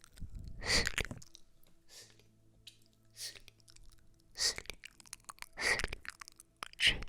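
Close-up ASMR trigger sounds: six short, crisp noises, about one every 1.2 seconds.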